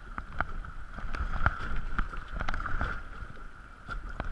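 Kayak paddling: water splashing and dripping off the paddle blades in short sharp ticks, over steady running water and wind rumble on the microphone.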